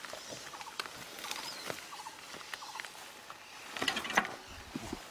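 Clicks, knocks and rattles of a red adaptive trike's wheels and frame as it is pushed over a stony path, with the loudest clatter about four seconds in. Small high chirps run alongside.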